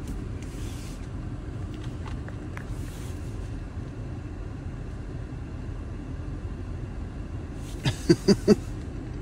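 Steady low rumble of a Toyota 4Runner idling, heard inside the cabin. About eight seconds in, a brief cluster of four quick pitched tones stands out above it.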